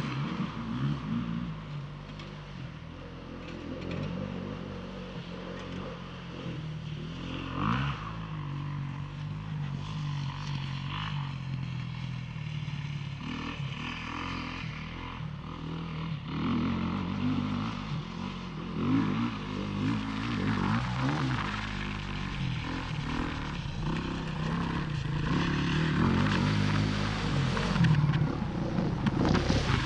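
Motocross bike engine revving up and down as it rides the muddy track, the sound getting louder near the end as the bike approaches.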